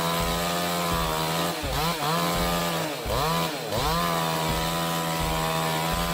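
Chainsaw running at high revs, cutting wood, its pitch dropping and climbing back twice as the engine loads in the cut.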